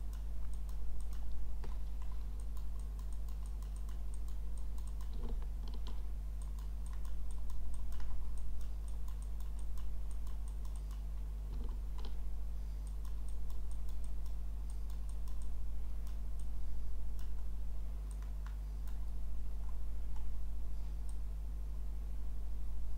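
Scattered clicks of a computer mouse and keyboard keys, one of them the Shift key about halfway through, over a steady low hum.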